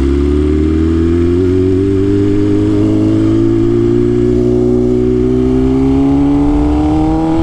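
BMW S1000RR M Package's inline-four engine pulling in one gear, its pitch climbing slowly and steadily as the bike accelerates.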